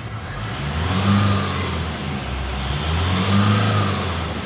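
Nissan Navara 2.5-litre engine revved twice from idle, the pitch rising and falling back each time, heard from inside the cab.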